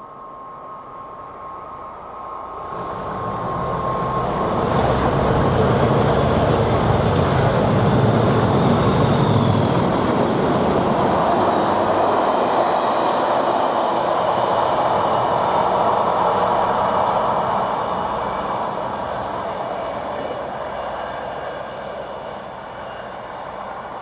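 Class 37 diesel locomotive with an English Electric V12 engine, working hard under power as it approaches and passes close by. The engine noise builds over the first few seconds and is loudest for about ten seconds. It then gives way to the rumble of the coaches and fades as the train draws away.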